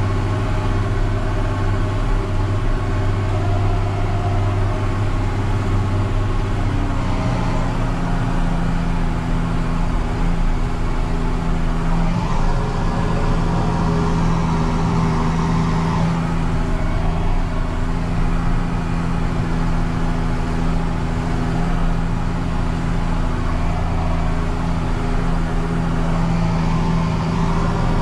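John Deere 6930 tractor's six-cylinder diesel running steadily under load while pulling a Väderstad Cultus 350 cultivator. The engine note steps up about seven seconds in and then holds.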